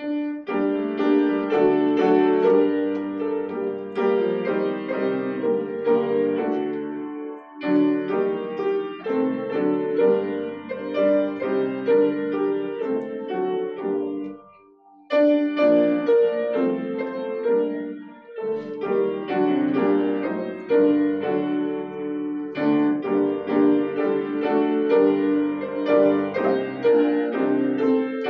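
Piano playing a hymn tune in phrases, with brief breaks between them and the longest pause about halfway.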